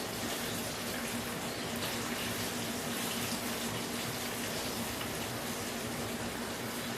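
Chicken wings deep-frying in canola oil: a steady sizzling hiss of the hot oil, with a faint steady hum underneath.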